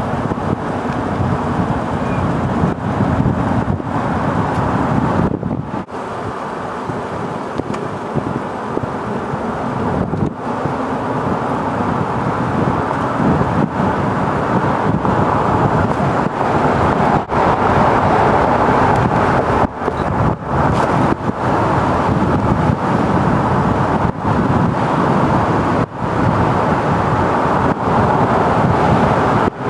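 Steady running noise of a road vehicle being driven on a paved road, engine and tyres together, with a few brief dips.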